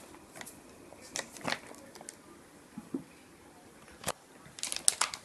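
Scattered light clicks, taps and rustles of a cat pawing and shifting against a laser printer's paper tray and the paper in it. There is about one every second, with a quick cluster near the end. The printer itself is not running.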